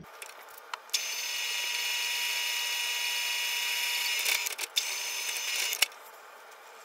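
Electric drill running with a steady high whine for about three seconds, a few clicks, then a second shorter run that stops with a click, drilling a center hole into the end of a bolt. The bit is worn out and cuts only shallow.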